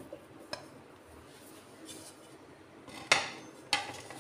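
A plate clattering twice, sharp and about half a second apart near the end, as it is put down after boiled potato pieces are tipped off it, with a faint tick earlier.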